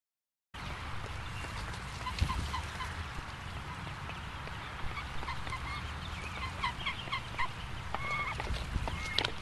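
Mallard hen and ducklings calling: many short, high peeps and soft quacks over a steady hiss, starting about half a second in. A sharp knock about two seconds in and another near the end.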